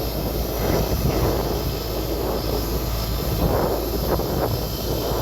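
Wind buffeting the microphone in irregular gusts over a steady low vehicle rumble.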